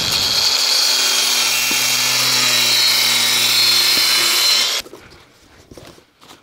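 Cordless angle grinder running steadily with its disc cutting into a cardboard parcel and its plastic strapping; it cuts off just before five seconds in. Quiet rustling and ticks of cardboard follow as the box flaps are pulled open.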